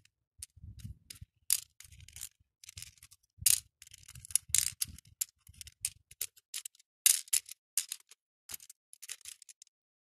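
Small acrylic beads clicking and rattling as they are picked up and dropped into the compartments of a clear plastic bead tray, in quick irregular clicks, with soft bumps of handling during the first half.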